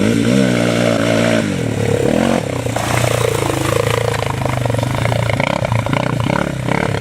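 ATV engine running under way on a wet trail. Its pitch rises over the first second and a half, then holds fairly steady, with a constant hiss.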